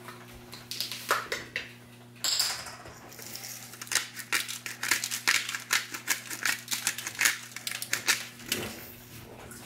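Salt sprinkled by hand over vegetables on an aluminium-foil-lined baking tray: a quick run of light ticks as the grains and fingers hit the foil, with a short hiss about two seconds in.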